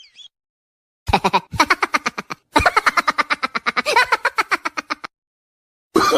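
A laughing sound effect: a quick, rapid-fire staccato laugh in two runs, the second longer, starting and stopping abruptly.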